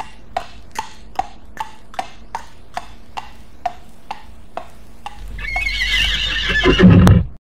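Horse hoofbeats clip-clopping at an even trot, about two and a half a second. A horse then neighs over the last two seconds, growing louder before it cuts off suddenly.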